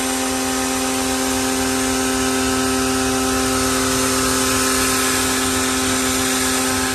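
Kapicon KP 40 pressure washer running, its motor and pump giving a steady hum under the hiss of a fine water spray striking the tractor.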